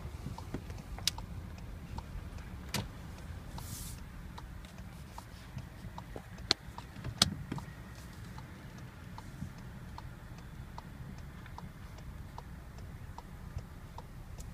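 Volkswagen Golf 7 1.4-litre petrol with DSG gearbox running, heard as a steady low hum, with scattered sharp clicks and ticks over it, the loudest about a second, three seconds and seven seconds in.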